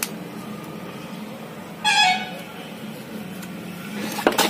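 A single short horn toot, falling slightly in pitch, about two seconds in, over a steady low hum. A few sharp clicks near the end.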